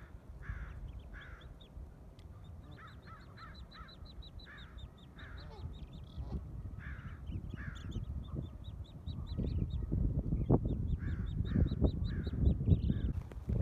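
Common goldeneye ducklings peeping in quick, high runs, with a lower, harsher call repeating every second or so. A low rumble of wind on the microphone grows louder about two-thirds of the way in.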